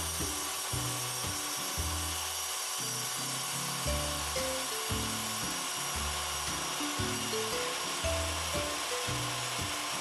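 Background music with a rhythmic bass line, over the steady running of a small table saw cutting a 2x4.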